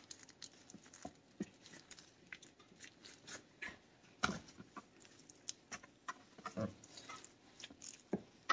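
Chef's knife cutting raw chicken breasts into strips on a plastic cutting board: faint, irregular soft cuts and light taps of the blade against the board, a little louder about four seconds in.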